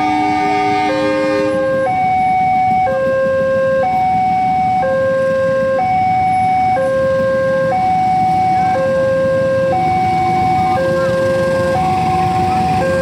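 Railway level-crossing warning alarm: an electronic two-tone signal alternating between a lower and a higher tone about once a second, over the low running of waiting motorcycle engines. A chord of several horn-like tones sounds for about two seconds at the start, and a train's running noise joins near the end as it reaches the crossing.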